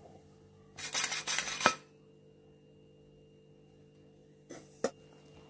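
A brief scraping, rustling burst of a utensil and plastic mixing bowl being handled as flour is added to génoise batter, ending in a sharp click. A softer rustle and a single click follow near the end.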